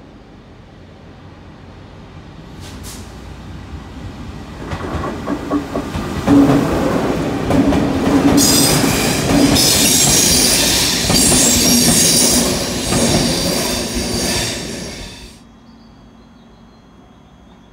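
Locomotive-hauled freight train passing close by, building up as it leaves the tunnel. Its wheels clatter over rail joints under a loud high hiss as the wagons go by. The sound cuts off abruptly near the end.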